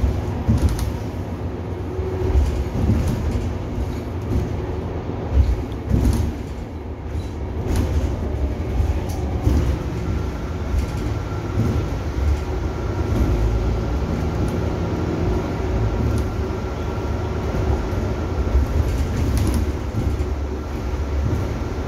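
City bus interior while driving: a steady low rumble of engine and road with light rattles and clicks from the fittings. From about ten seconds in, a faint steady high whine joins it.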